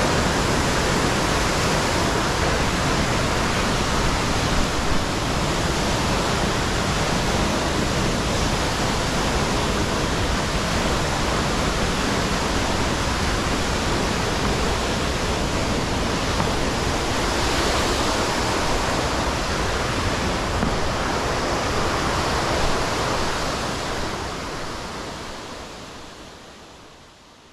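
Steady rushing noise of running water, fading out near the end.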